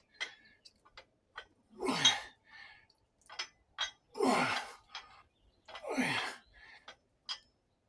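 A man exhaling hard three times, about two seconds apart, in breathy huffs that fall in pitch, from the strain of a set of shoulder exercises; short sharp clicks come between the breaths.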